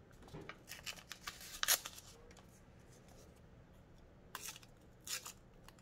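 Paper and cardstock being handled: short rustles and crinkles in two clusters, the first in the opening two seconds, the second about four to five seconds in.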